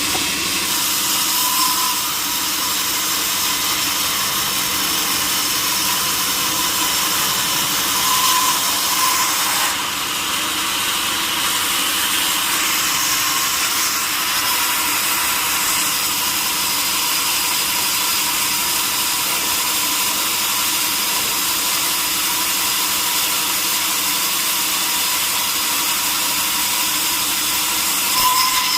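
Power saw cutting steadily through a large wooden log, a continuous high-pitched sawing noise with little low rumble. It swells briefly a few times, once near the end.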